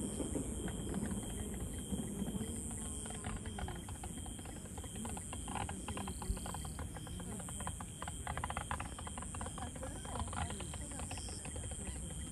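Lull in a fireworks display: faint murmur of distant voices with many small scattered clicks and crackles, and no big bangs.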